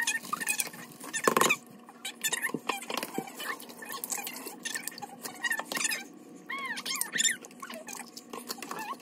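Food-prep handling: a plastic bag crinkling as boxed brownie mix is shaken out of it, and eggs being cracked and dropped into a plastic mixing bowl, giving a run of small clicks and rustles. A few short high squeaks come near the end.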